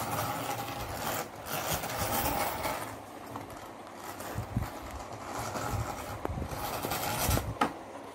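Clear plastic toy packaging rustling and crinkling as it is handled, with a few light plastic knocks.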